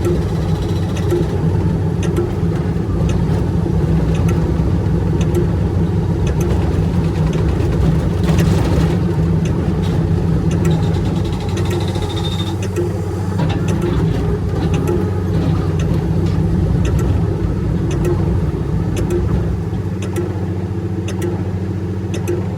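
Large excavator's diesel engine running steadily under work, with scattered sharp clicks over it. The engine note eases off near the end.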